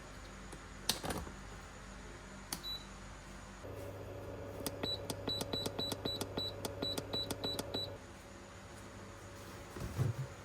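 Electronic keypad beeping: a couple of clicks and a single beep, then a steady hum starts, and about a dozen quick, evenly spaced beeps follow over some three seconds before the hum stops.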